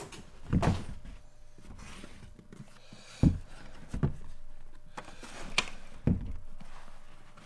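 Stiff new Red Wing leather work boots being handled on a workbench, picked up and turned over, with several dull thumps and knocks and rustling of leather in between.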